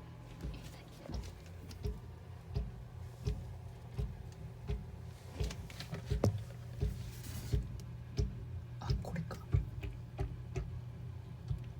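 Dull booming thumps of unknown origin, repeating evenly about three every two seconds over a steady low hum.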